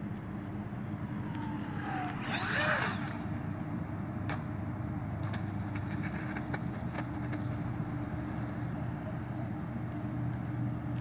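Electric ducted fans of an RC Airbus A320 model airliner whining: a tone falls in pitch, then a brief louder swell about two to three seconds in, with tones quickly rising and falling as the throttle changes on the landing approach. After that come a few light clicks over a steady low hum.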